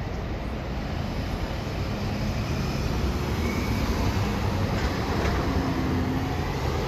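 Steady low rumble of city street noise, with a faint brief whine or squeal now and then.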